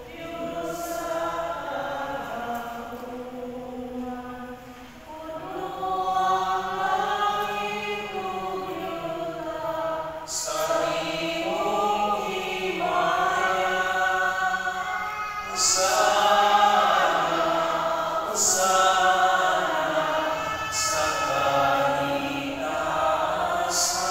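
A group of voices singing a slow hymn together in long held notes, phrase after phrase, swelling louder about halfway through.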